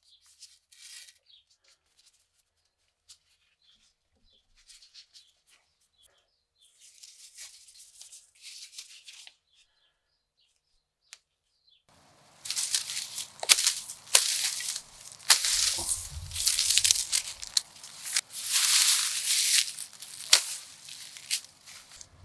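Machete blade swung through dry reeds and grass: repeated loud rustling swishes with sharp snaps, starting about halfway in. Before that there are only faint small clicks and scrapes of a metal pin being fitted into a wooden knife handle.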